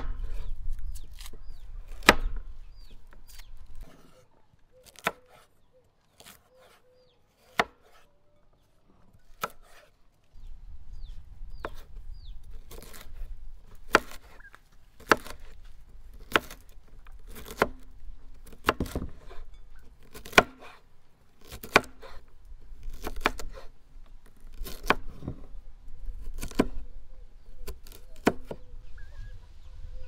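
Chopping on wood: sharp single knocks, a few seconds apart at first, then about one a second through the second half.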